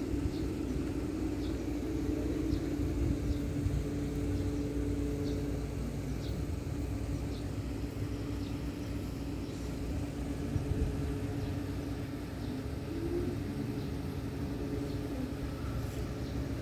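Steady low machine hum, with a few held tones over a low rumble, and faint short high chirps recurring about once a second.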